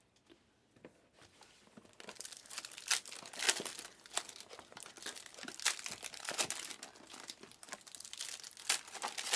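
Trading-card pack wrappers crinkling and tearing as packs are ripped open and the cards handled. It is quiet for the first second or so, then turns into a dense, irregular crackling.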